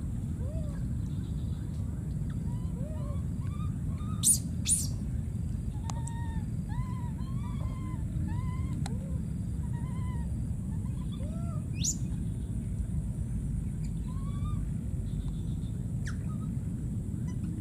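Many short, rising-and-falling chirping animal calls over a steady low rumble, with two sharp high squeaks about four seconds in and single ones near the middle and end.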